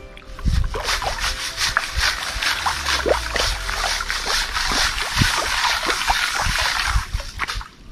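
Round metal fossicking sieve being shaken and swirled in shallow river water, washing sand through its mesh: rapid repeated sloshes and splashes that stop near the end.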